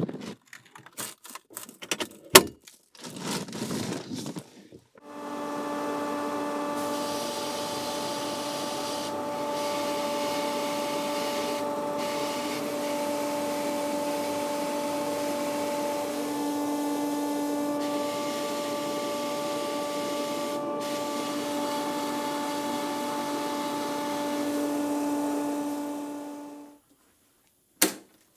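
A small electric power tool runs steadily for about twenty seconds, a constant motor hum with an abrasive rubbing noise, working on the metal of a diecast model car, and cuts off suddenly. Before it come a few light clicks and knocks of small parts being handled, with one more click near the end.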